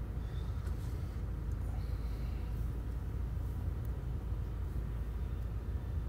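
Steady low background rumble, even throughout, with no distinct knocks or changes.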